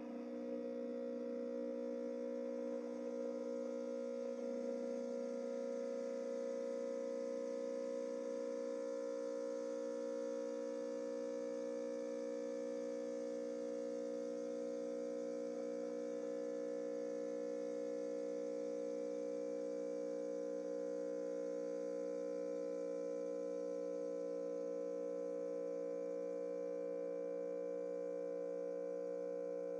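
Benheim BSM-800WH steam mop running with a steady electric hum of several fixed tones, over a faint hiss, as its water tank runs low before a refill.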